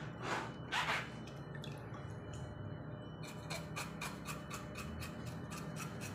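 Water swishing in a basin twice in the first second, then, from about three seconds in, a fast, even run of scraping strokes, about six a second, as a tool scrapes the hair and skin off a wet cow's snout.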